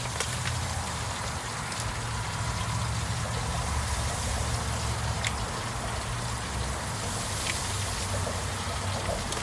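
Steady hiss with a few faint crackling pops from an open wood-fired barbecue pit as the briskets are spritzed with a vinegar-and-water mix.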